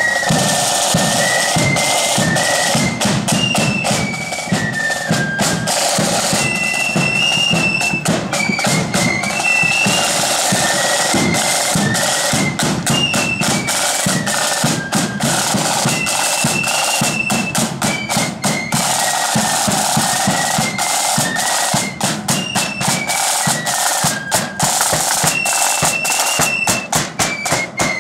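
Marching flute band playing a tune on flutes over side drums, with drum rolls and rapid drum strokes.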